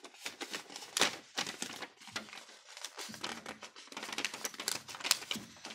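A thin sheet crinkling and rustling as fingers pinch and fold it, with irregular crackles, a few louder ones about a second in and near the end.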